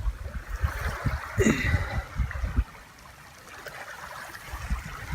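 Shallow lake water splashing and trickling while a fish is being caught by hand, with short low thumps on the microphone throughout.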